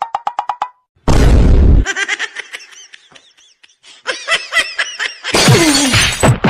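Dubbed slapstick sound effects in quick succession: a fast run of clicks, a loud crash about a second in, short high chirps, then near the end a loud noisy hit with sounds that slide down in pitch.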